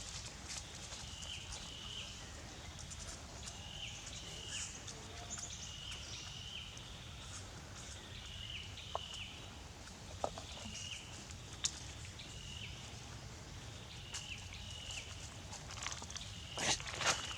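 A high chirping call repeats in pairs every two seconds or so over steady outdoor background noise, with a few sharp clicks and a louder rustle near the end.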